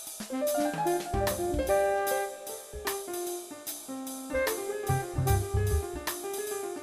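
Upbeat jazzy background music with piano, plucked strings and a drum kit keeping a steady beat.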